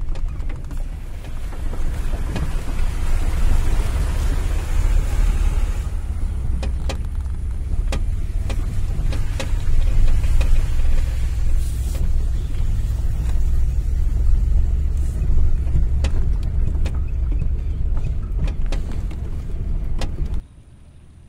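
Vehicle engine and tyre noise heard from inside the cabin while driving on a wet dirt track: a steady low rumble with scattered clicks and knocks from the bumpy ground. It cuts off suddenly just before the end.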